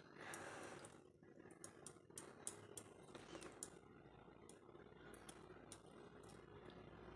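Near silence with faint, scattered small clicks and soft squishes of a hand turning a banana in thick maida batter in a steel bowl.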